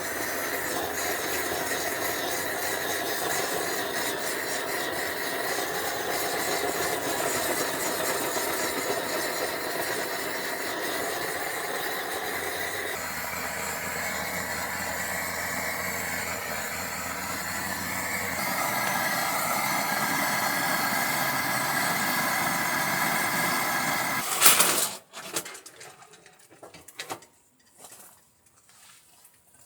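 Handheld gas torch burning with a steady hiss while it preheats the glass door of a wood stove, shut off with a sharp click about five seconds before the end.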